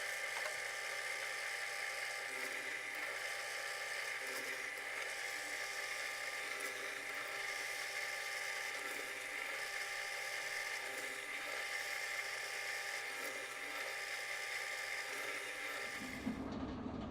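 Power tool's electric motor running at a steady speed with a high-pitched whine. Near the end it cuts off abruptly and a low rumble takes over.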